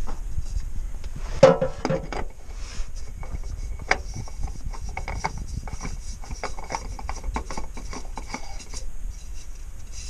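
Hand working at the underside of a motorhome engine during an oil change: rubbing and scraping against metal parts, with scattered clicks and one louder, pitched scrape about a second and a half in.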